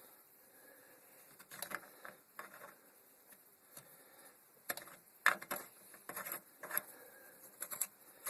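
Irregular metallic clicks and taps as a crank puller is handled and screwed into a bicycle crank arm, the loudest about five seconds in.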